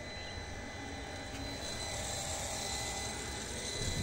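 Electric household water booster pump running with a steady motor hum and whine, growing louder toward the end. The pump keeps running without cutting out because a water pipe under the floor is leaking.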